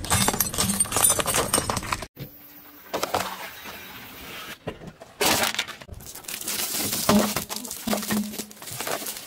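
Car tyre rolling over and crushing small objects: glass light bulbs cracking and shattering with dense crackling for about the first two seconds. After a quieter stretch there is more crunching and cracking from about five seconds in, which fits hard lollipops breaking under the tyre.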